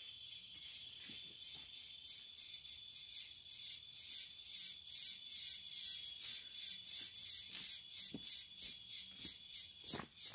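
Insects chirping in a steady, high-pitched pulsing rhythm, about four pulses a second, over a thin constant whine. A few footsteps come close near the end.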